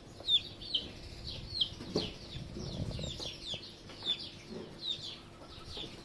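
Young chicks peeping: a steady stream of short, high peeps, each falling in pitch, several a second.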